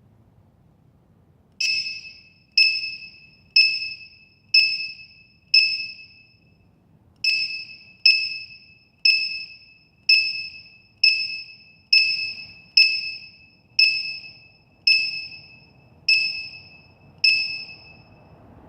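Piezo buzzer of a battery-monitor low-voltage alarm beeping about once a second, each short high beep fading quickly: five beeps, a short pause, then twelve more. The alarm signals a battery voltage below its set threshold.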